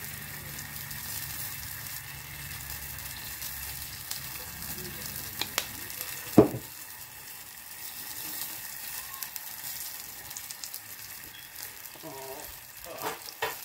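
Melted-butter sauce sizzling in a small stainless saucepan on a gas burner, a steady crackling hiss. There is a single sharp knock about six seconds in.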